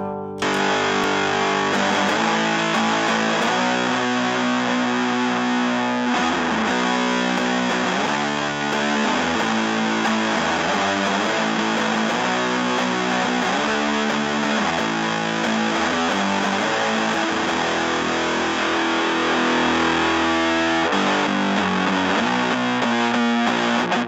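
Electric guitar played through a Space Sounds Galactic Fuzz pedal, giving a thick, heavily distorted fuzz tone. The fuzz comes in about half a second in.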